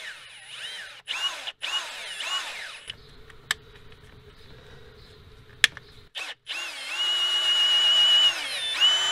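Cordless drill driving a thread tap into the exhaust manifold stud holes, chasing the threads clean. The motor whines up and down in short runs, with a couple of sharp clicks in a quieter middle stretch, then runs steadily for about two seconds near the end.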